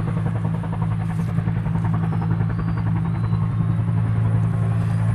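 A steady low drone from a running motor or engine, unchanging throughout, with a fast even pulse in it.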